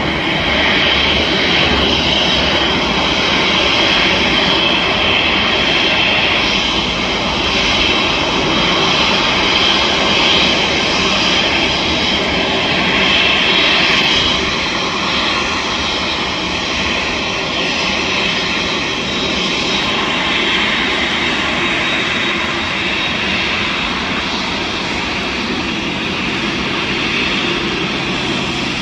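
Jet engines of a four-engine Boeing 747 taxiing, a steady loud rushing whine that eases slightly about halfway through.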